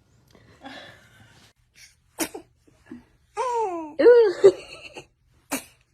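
A newborn baby sneezing: two short, sharp sneezes, about two seconds in and again near the end. Between them comes a high-pitched voice sliding up and down.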